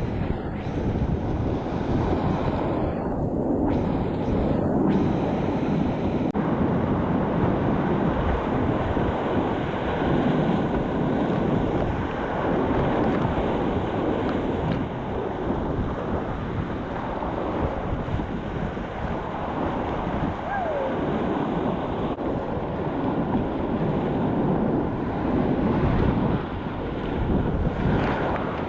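Whitewater of a river rapid rushing steadily, with wind buffeting the microphone.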